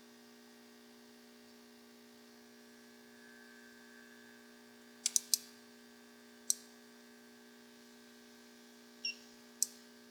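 Relays inside a FeelTech FY6800 DDS signal generator clicking as it powers up after a power-supply repair: three sharp clicks close together about five seconds in, one a second later, and two more near the end, over a steady mains hum.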